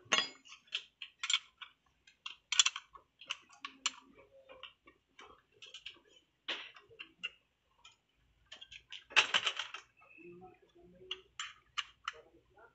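Irregular small metal clicks and taps of a hand tool and loose parts against a clutch master cylinder and pedal bracket while it is taken apart, with a busier run of clicks about nine seconds in.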